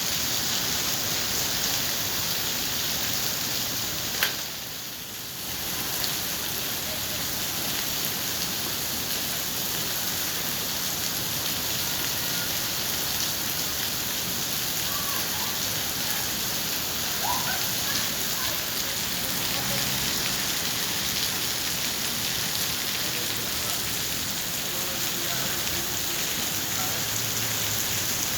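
Heavy rain, a steady downpour, falling on the street and pavement with an even hiss. A single sharp click comes about four seconds in, followed by a brief dip in the rain noise.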